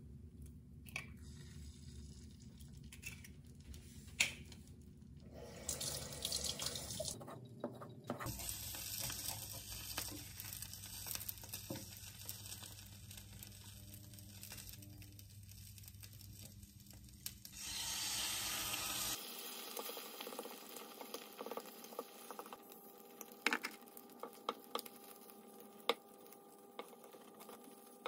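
Eggs frying in a nonstick pan: a steady sizzle, louder through the middle stretch, with light taps and scrapes of a wooden spatula and chopsticks against the pan near the end.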